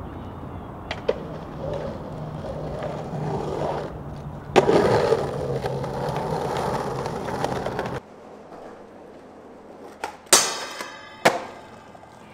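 Skateboard wheels rolling, with one loud board clack about halfway through. After an abrupt cut, three sharp skateboard clacks come near the end, the second followed by a brief ringing tail.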